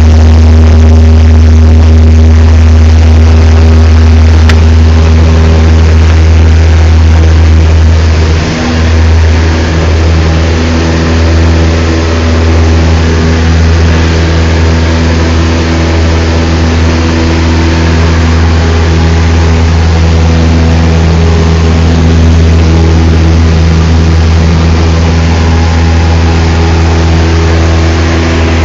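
Cessna 172's piston engine and propeller running with a steady, loud drone, dipping briefly about eight seconds in.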